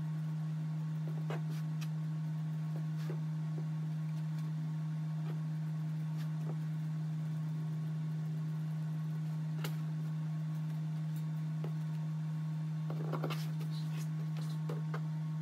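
Scissors snipping through fabric, a few faint separate cuts with a short run of snips near the end, under a loud steady low hum.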